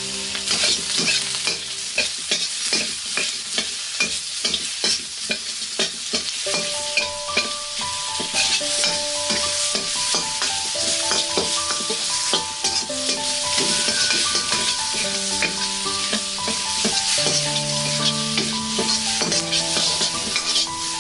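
Shrimp sizzling in a hot wok as a spatula stirs and tosses them. Frequent short clicks and scrapes of the spatula against the wok sound over a steady frying hiss.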